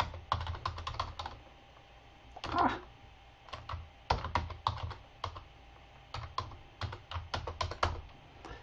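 Typing on a computer keyboard: three quick runs of key presses with short pauses between them.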